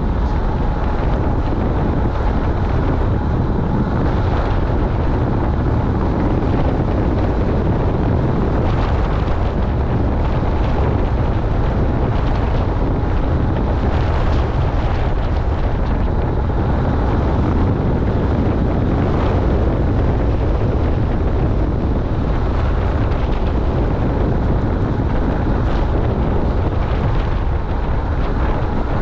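Wind rushing over the microphone of a camera riding on a moving bicycle: a steady, loud rumble.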